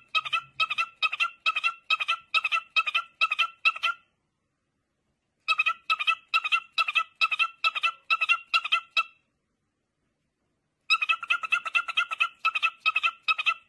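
Cockatiel calling in rapid rows of short, repeated chirps, about three a second, in three runs broken by pauses of a second or two.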